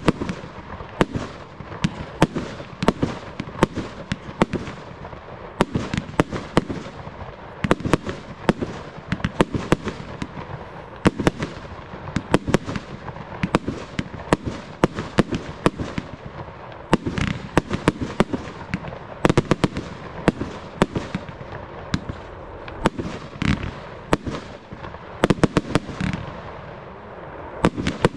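Aerial fireworks being launched and bursting in a rapid, unbroken series of sharp bangs, several a second.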